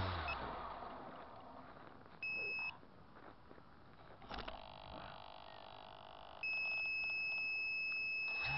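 A quadcopter's motor noise dies away in the first second or two after it has come down in the snow. Then an electronic buzzer on the downed craft sounds a steady high beep: once briefly about two seconds in, then a long continuous tone from about six and a half seconds on.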